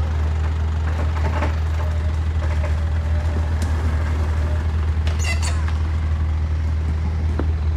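Jeep Wrangler engine running low and steady while the Jeep crawls slowly over creek rocks. A few brief clicks sound over the drone.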